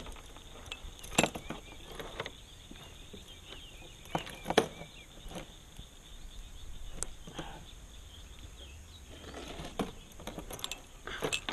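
Metal chain fish stringer clinking and clicking in scattered, irregular knocks as a crappie is clipped onto it and hung over the side of the kayak.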